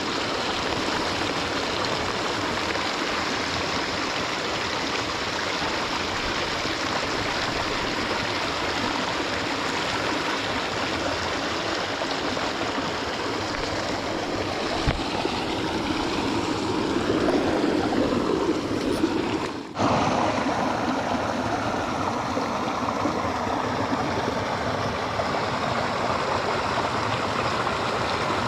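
Creek water flowing steadily, swelling a little louder for a few seconds about two-thirds of the way through, with a brief break in the sound just before twenty seconds in.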